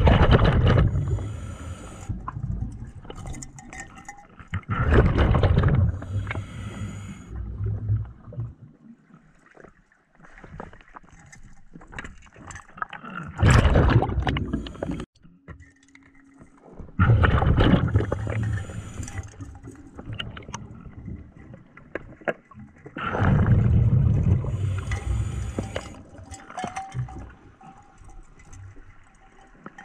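Scuba diver breathing underwater through a regulator: a hiss on each inhale, then a loud burst of exhaled bubbles. This repeats five times, roughly every four to six seconds.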